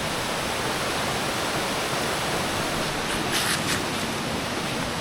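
Jungle stream running into a pool, a steady rushing of flowing water.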